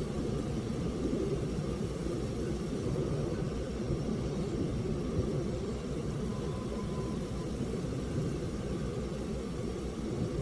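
Steady low rumble of a vehicle's road and engine noise, with no sudden events.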